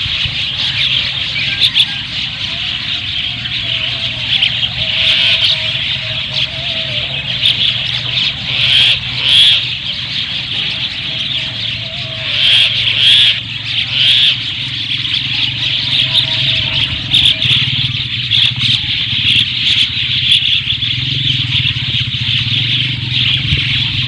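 A flock of mynas chirping and chattering without a break, many high calls overlapping into one dense mass that swells louder here and there. A steady low hum runs underneath.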